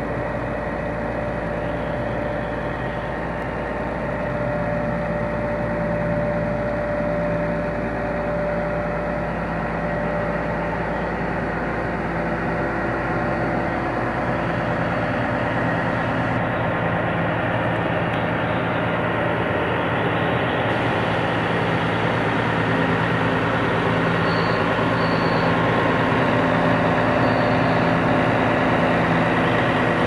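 Vögele Super 2500 asphalt paver's Deutz six-cylinder diesel engine running steadily at standstill with an even, constant-pitch hum, growing a little louder toward the end.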